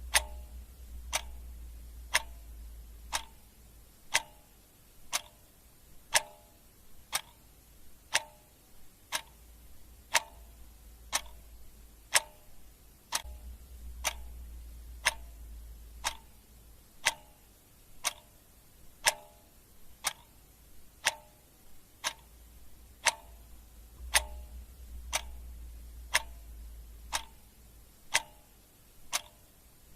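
Clock ticking steadily at about one tick a second, alternate ticks slightly different in tone, like a tick-tock.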